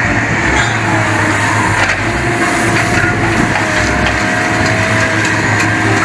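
Sennebogen wheeled material handler with an orange-peel grapple working a scrap and debris pile: a steady engine hum under a constant crackle and crunch of debris as the grapple grabs a load.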